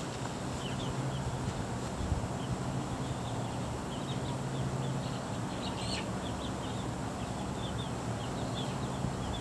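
Chickens nearby making many short, scattered high chirps, over a steady low hum.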